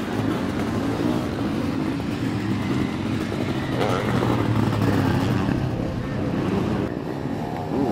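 Several sidecar motocross outfits' engines running hard on a dirt track, revving up and down as they race past, with the engines overlapping.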